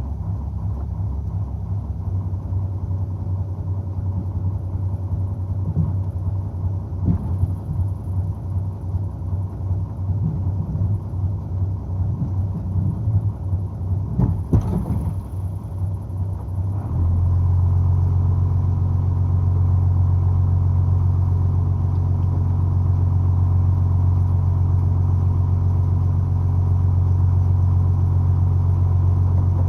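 A squid-fishing boat's engine runs with a low, throbbing hum while the anchor is hauled in. About 17 seconds in the engine gets louder and runs more evenly, as if under more throttle or load.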